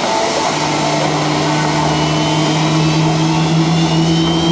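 Boeing F/A-18 Hornets' General Electric jet engines running on the ramp: a loud, steady jet rush with a low hum that comes in about half a second in. A faint high whine slowly climbs in pitch over the second half.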